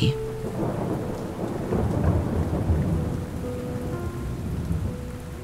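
Rolling thunder over steady rain: a low rumble that builds over the first two seconds and fades away toward the end, with the rain's hiss underneath.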